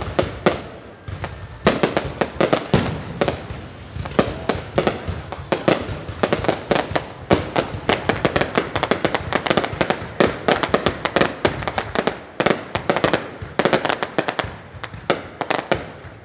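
Fireworks and firecrackers going off in rapid, overlapping bangs and crackles, with a short lull about a second in before the barrage picks up again.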